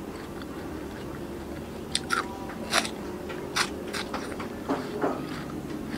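Crisp crunching bites and chewing of fresh watermelon close to the microphone, a series of sharp crunches starting about two seconds in.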